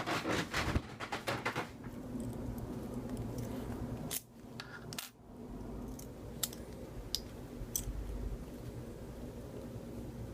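Light metallic clicks and clinks from a Southord Jackknife folding lock pick set being handled. There is a quick cluster of clicks in the first couple of seconds, then a few single clicks spaced out later.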